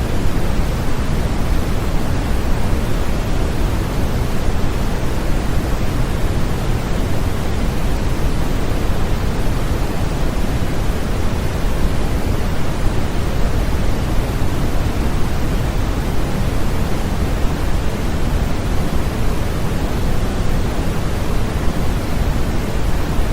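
Continuous sleep-aid white noise: a steady, even hiss with no changes, heavier in the low end and thinning toward the highs.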